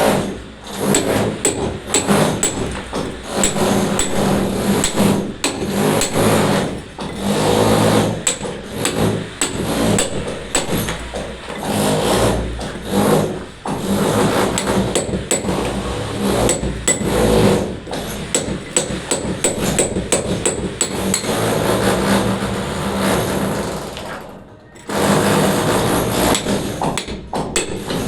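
Hammer striking repeatedly and irregularly, sharp metallic clinks, with a short pause near the end.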